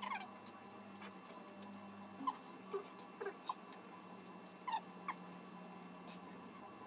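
About six short, high squeaks that fall in pitch, scattered over faint clicks of people eating and a steady low hum.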